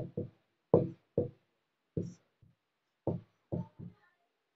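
Dry-erase marker writing on a whiteboard: a string of about nine short, separate strokes and taps.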